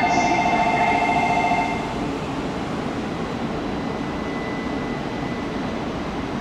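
A loud electronic platform bell rings a steady two-tone trill and cuts off about a second and a half in. After it comes the steady, even running noise of an E2 series Shinkansen train at the platform.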